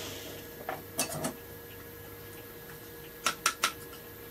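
Light clicks and taps of small tools and metal parts being handled on a woodworking bench: a cluster of three about a second in, and another three shortly after three seconds.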